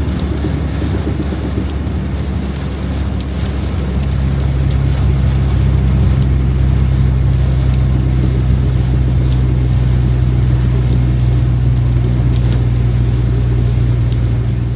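Steady engine drone and road rumble heard from inside a moving car, with a slight change in the engine's note about four seconds in.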